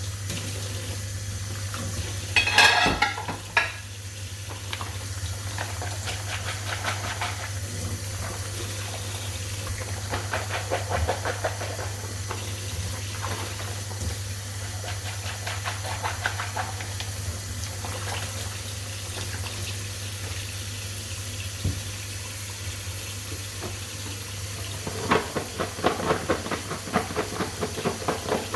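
Utensils being washed at a kitchen sink: water from the tap with intermittent clinks and scrapes of dishes, over a steady low hum. There is a louder burst of clattering a few seconds in and another run of clatter near the end.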